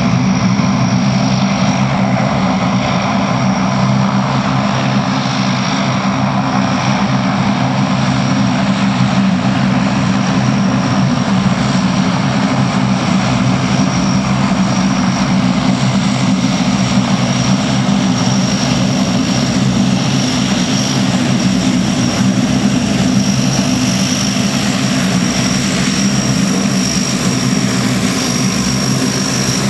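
Four Allison T56 turboprops of a Lockheed P-3 Orion-type aircraft running at taxi power: a steady low propeller drone with a thin high turbine whine on top. The sound grows a little brighter in the second half as the aircraft taxis closer.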